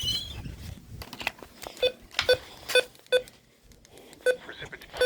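About seven short electronic beeps, all on the same low tone with overtones, coming at uneven intervals with faint clicks between them, like keypad button presses on a device.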